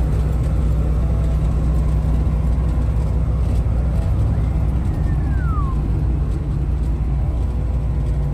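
Steady low engine and road drone inside a car's cabin while cruising at highway speed.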